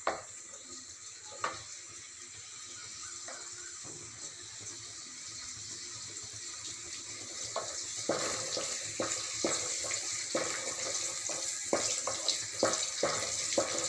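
Shallots, garlic and curry leaves sizzling in hot oil in an aluminium kadai, frying toward a light brown. A wooden spatula scrapes and knocks against the pan now and then, more often and louder from about halfway through.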